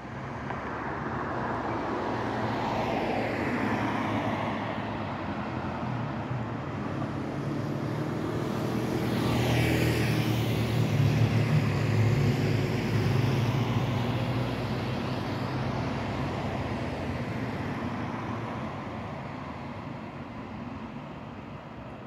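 A passing vehicle: a low engine hum with a rushing noise that slowly swells to its loudest about halfway through and then fades away.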